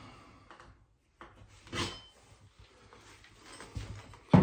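Scattered light knocks and rubbing of tools being handled against drywall, with one loud thump near the end.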